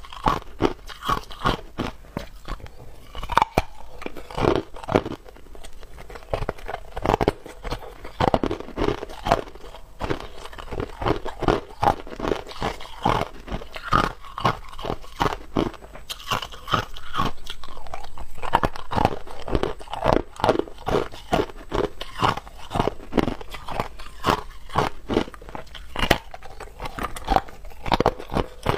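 Hard ice being bitten and chewed right next to a clip-on microphone: sharp crunches following one after another, with a denser run of continuous crunching a little past the middle.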